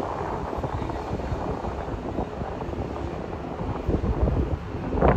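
Jet airliner's engine rumble with wind buffeting the microphone, and a louder buffet near the end.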